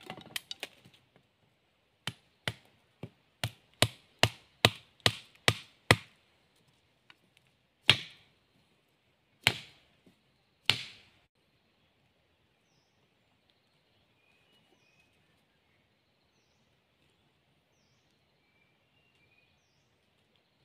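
Sharp wooden knocks as stakes are driven into the ground with a wooden stick: about two blows a second for the first six seconds, then three heavier blows a second or so apart, then near quiet.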